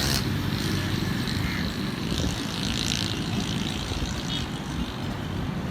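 Steady vehicle noise: engines running with a low hum.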